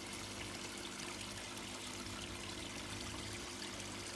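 Steady trickle and pour of water running into a koi pond, an even rushing with a faint steady hum underneath.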